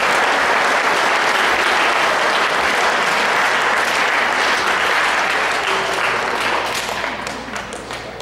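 Audience applauding, dense and steady, then thinning into scattered claps and fading over the last couple of seconds.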